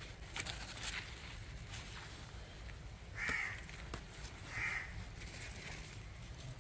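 A crow cawing twice, about three seconds in and again a second and a half later. Before the caws come a few light clicks and rustles of pumpkin leaves and vines being handled.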